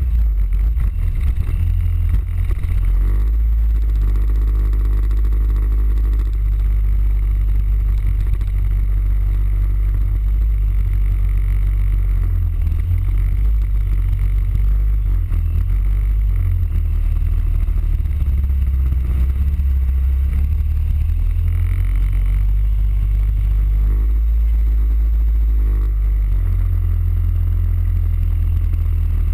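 Suzuki Burgman 650 scooter's parallel-twin engine running while riding at street speed, under a steady deep rumble of wind on the scooter-mounted camera's microphone. The engine note rises and falls faintly a few seconds in and again near the end.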